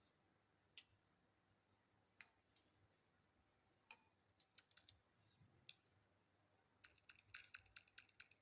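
Faint sharp clicks: a few scattered ones at first, then a quick run of many clicks near the end.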